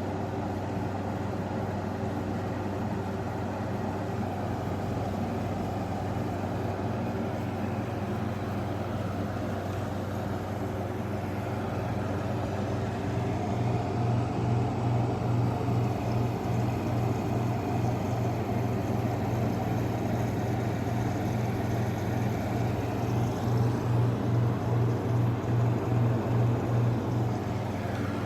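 Arctic King window air conditioner running with its compressor on: a steady low hum under the rush of the fan. Twice in the second half the hum throbs at about three to four beats a second. The owner suspects the fan motor's bearings are starting to go.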